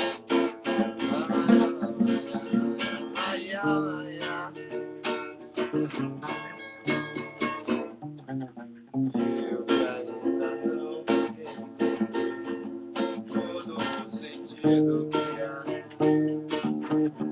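Nylon-string acoustic guitar (violão) and acoustic bass guitar (baixolão) playing a samba instrumental passage: strummed chords over plucked bass notes, with a brief lull about halfway through.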